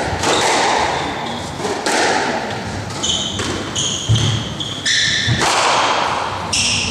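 Squash rally: the ball struck by rackets and smacking off the court walls in a series of sharp thuds that ring in the hall, with brief high squeaks of the players' shoes on the wooden floor from about halfway through.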